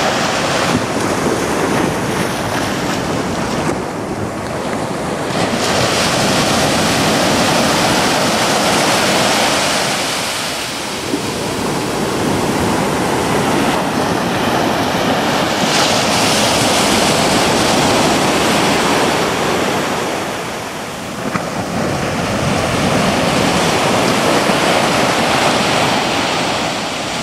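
Ocean surf breaking and washing up the beach, swelling and ebbing every ten seconds or so, with wind rumbling on the microphone.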